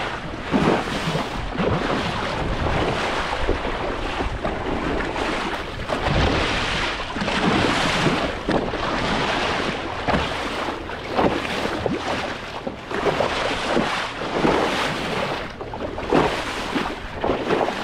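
Small Senator 500 boat running across open sea. Wind buffets the microphone and water rushes past the hull, with irregular surges of splash and thud about every second as the hull meets the chop.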